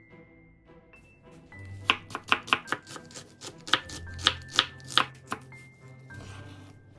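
A chef's knife slices half an onion thinly on a wooden cutting board. There are about ten crisp strikes of the blade on the board in two quick runs, from about two seconds in to about five and a half, with soft background music underneath.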